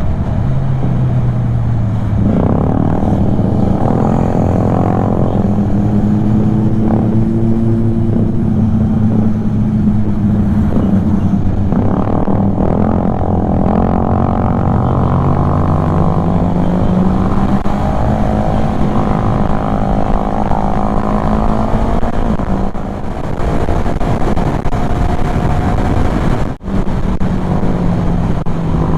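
Kymco Xciting 400 scooter's single-cylinder engine running under way, its note rising in pitch with throttle about two seconds in and again around the middle.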